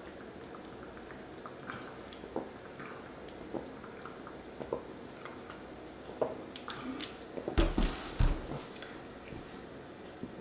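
A man gulping carbonated soda from a 2-liter plastic bottle, with small wet swallowing clicks every second or so. About three-quarters of the way through come a few louder knocks and plastic crackles with low thuds as the bottle is brought down onto a wooden table.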